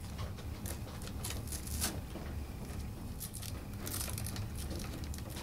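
Faint rustling and crinkling with a few scattered soft clicks as a bundle of cables and plastic zip ties is handled and fastened.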